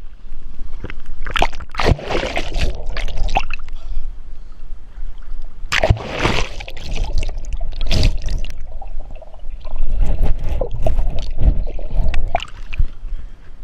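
Water splashing and sloshing close to the microphone in irregular bursts, over a steady low rumble.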